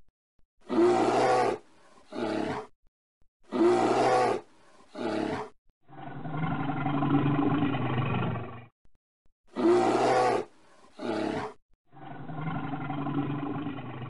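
A bear roaring and growling in separate calls: a pair of short roars that comes three times, between which come longer, lower roars lasting two to three seconds each.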